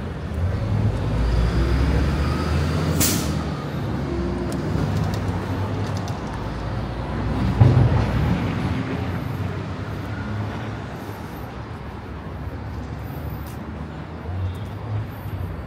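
City street traffic with a heavy vehicle's engine rumbling low, a brief sharp hiss about three seconds in, and a short thump about halfway through.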